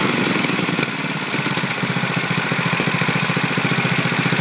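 8 HP Tecumseh single-cylinder four-stroke engine running at idle with a regular beat. It dips slightly about a second in, then settles into a steady, even rhythm.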